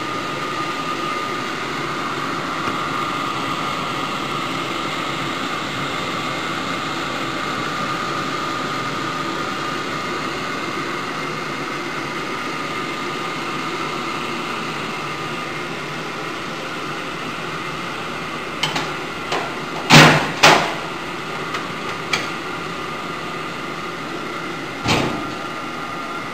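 Microplex F60 continuous-form printer running with a steady hum and a held whine. Near the end come a few metal clicks and knocks, the loudest a pair close together, then another knock, as its hinged units are shut.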